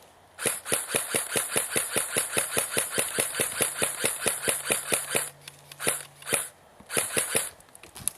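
Airsoft gun firing a long, steady string of shots at about six a second for nearly five seconds, then a few shorter strings.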